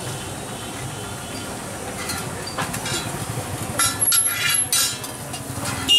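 Metal spatula scraping and clinking against a hot tawa (flat griddle) as a paratha is pressed and turned, with a quick cluster of ringing metal clinks about four seconds in, over steady background noise.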